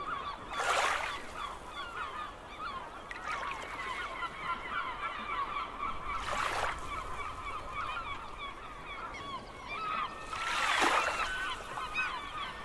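A flock of seagulls calling and squawking continuously, many short overlapping cries, with three brief whooshing rushes of noise, the loudest near the end.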